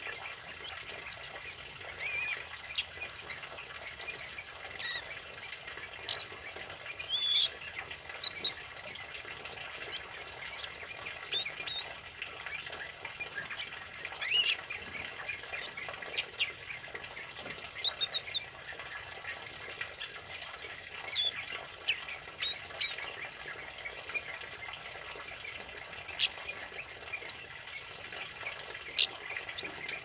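Caged male kemade calling over and over: short, sharp, high-pitched chirps and quick upward-sliding notes scattered through, a few standing out louder than the rest.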